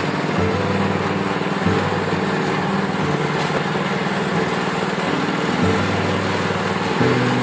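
Coconut milk screw press running steadily, its motor and pressing screw making a continuous mechanical whir while it squeezes milk from grated coconut.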